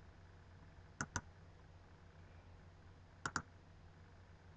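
Computer mouse clicking: two quick pairs of clicks, about two seconds apart, over a faint low hum.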